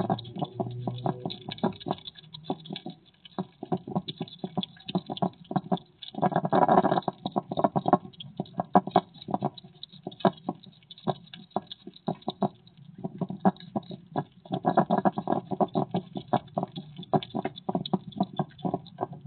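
Hedgehog eating at close range: a rapid, uneven run of chewing and chomping clicks. It grows denser and louder twice, once about a third of the way in and for a longer spell past the middle.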